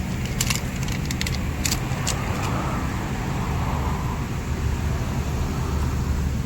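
Steady low rumble of road traffic or a running engine. In the first two seconds a few sharp clicks and taps come from tyre-repair tools being handled.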